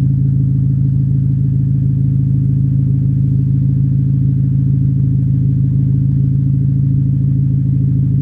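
Volkswagen MK5 GTI's turbocharged four-cylinder engine idling steadily through a newly fitted turbo-back exhaust (APR downpipe, AWE cat-back with dual tips). The exhaust gives a low, even drone, with no revs.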